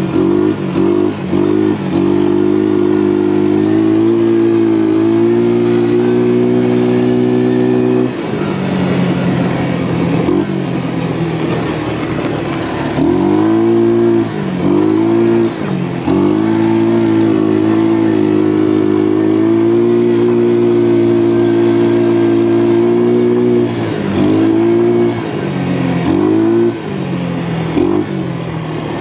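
ATV engine running under throttle on a dirt trail. The revs hold steady for stretches of several seconds, sag to a lower pitch for a few seconds near the middle, and repeatedly drop and climb back as the throttle is eased off and reopened.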